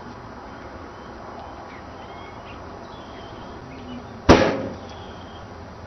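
Smoke cannon firing once about four seconds in: a single sudden loud bang that dies away within about half a second.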